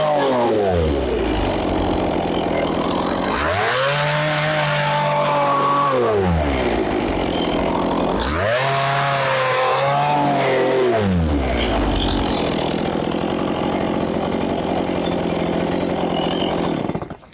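Two-stroke chainsaw idling, revved up twice for about three seconds each while cutting into the log, then settling back to idle. It cuts off just before the end.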